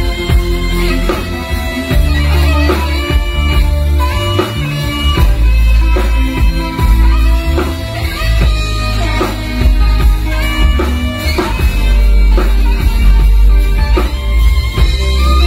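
Live rock band playing an instrumental passage: saxophone carrying the melody over electric bass and drums.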